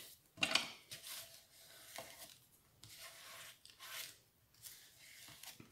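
Paper and card rustling and rubbing as they are pressed and smoothed down by hand, in a few soft, brief strokes.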